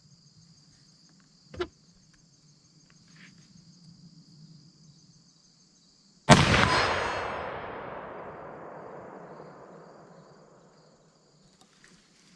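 A .50-calibre CVA muzzleloader fires once about six seconds in: a sharp report whose rumble trails off over about four seconds. Crickets chirp steadily before the shot.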